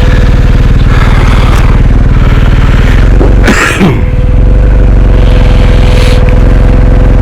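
Adventure motorcycle engine running steadily at low speed. About halfway through, the engine note briefly dips and changes pitch with a short burst of hiss, then settles back.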